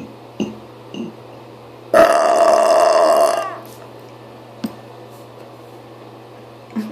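One long, loud burp lasting about a second and a half, starting about two seconds in and dropping in pitch as it dies away. A few short clicks come before and after it.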